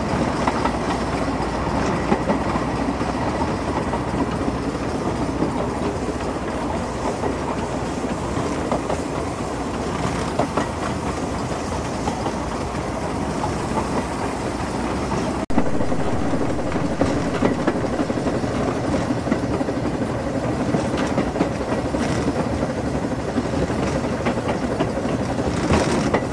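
The Ffestiniog Railway's narrow-gauge steam locomotive Welsh Pony, an 1867 George England saddle tank, heard on the move from its tender: a steady, loud clatter of wheels on the rails along with the running engine. About fifteen seconds in the sound breaks off for an instant and comes back a little louder.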